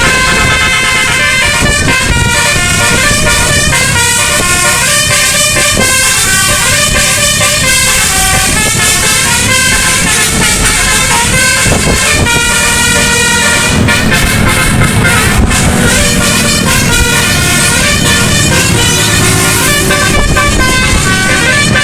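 A bus's nine-trumpet telolet musical air horn playing a fast melody, its notes stepping up and down without a break, over a low rumble.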